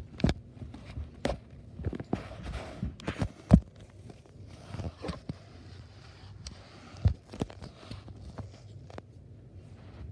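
Irregular soft thumps and rustling from someone moving about over carpet and handling the recording phone, with louder knocks about three and a half seconds in and again around seven seconds.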